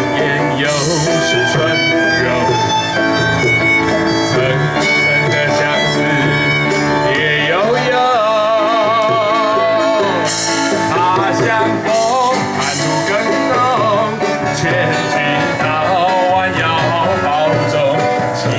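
Music: a song with acoustic guitar accompaniment and a lead melody that wavers with vibrato about halfway through.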